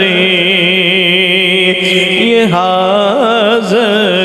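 Naat singing: one long, drawn-out syllable on held notes that waver and glide, shifting pitch about two seconds in, amplified through a microphone.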